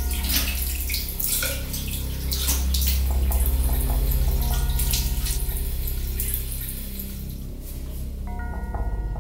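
Tap water running and splashing into a sink or bathtub basin, with a low steady drone underneath.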